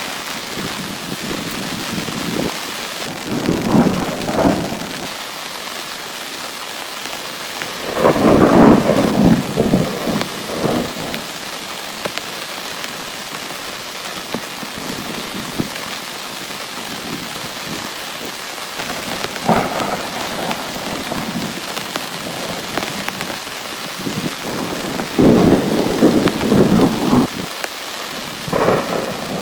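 Heavy rain falling steadily, with several rolls of thunder rising over it. The loudest rolls come about eight seconds in and again near the end.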